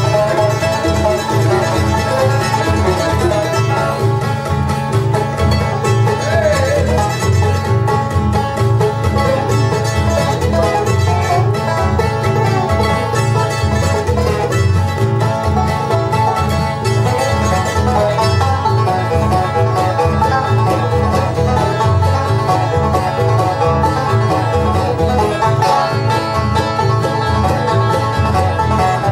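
Background music: a bluegrass-style instrumental with plucked strings and a steady beat.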